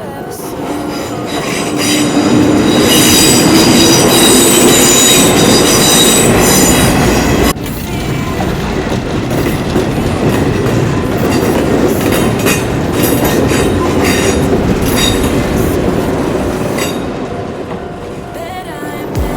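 Electric train passing close by, loudest after about two seconds, with high steady squealing from its wheels. The sound drops suddenly about seven seconds in, then carries on and fades near the end.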